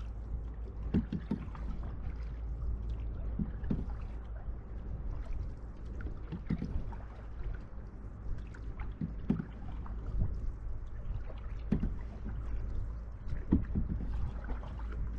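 Canoe paddle strokes in the river, a short dip and splash every two and a half to three seconds, over a steady low rumble.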